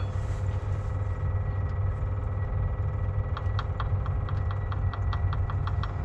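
Steady low rumble with a faint steady whine, and from about halfway in a run of quick ticks, around five a second, from an electric fuel pump running with no fuel reaching the filter: the tank is empty.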